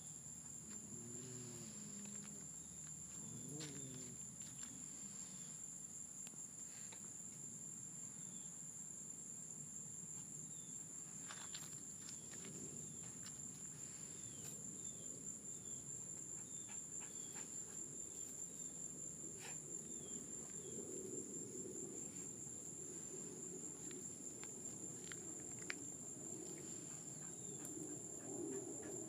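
Steady, high-pitched insect chorus of crickets, with a few short chirps and scattered soft clicks.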